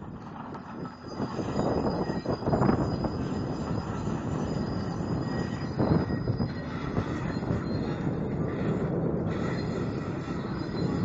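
CMB RB26 hydraulic rock breaker on an excavator hammering a large dolomite boulder: a rapid, continuous run of blows with a metallic ring, picking up about a second in.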